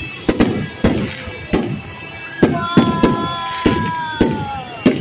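Aerial fireworks bursting in rapid succession, about two sharp bangs a second, each echoing off. Around the middle a high whistling tone holds for a couple of seconds and sags slightly as it ends.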